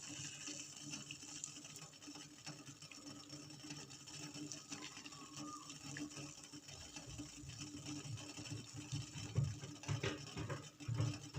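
Faint bubbling of guava leaves simmering in water in a pot on a low gas flame, with a few soft low knocks near the end.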